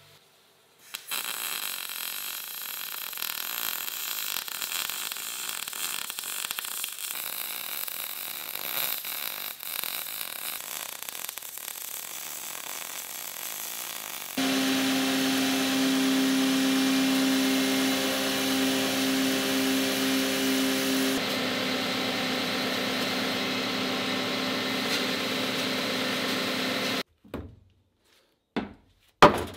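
MIG welder crackling and spitting while welding steel, then an abrupt change about halfway through to a louder, steady machine run with a held whine. The machine noise cuts off suddenly near the end, followed by a few short knocks.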